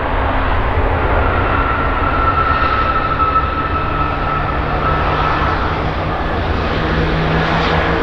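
Jet engines of a Boeing 737-8 MAX airliner running: a steady rushing noise with a high whine that fades out about six seconds in.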